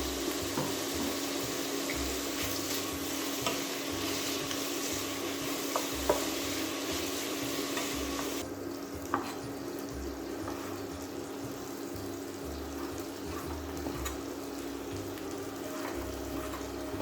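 Squid sizzling as it fries in olive oil in a pan, stirred with a utensil that clicks against the pan a few times. The sizzle turns softer about halfway through.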